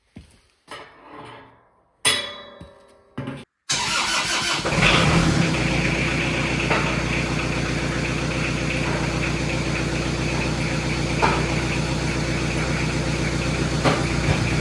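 A tractor engine comes in suddenly about four seconds in, after a few short clipped noises, and then runs steadily. A few sharp knocks sound over it as the three-point hitch raises a steel drum.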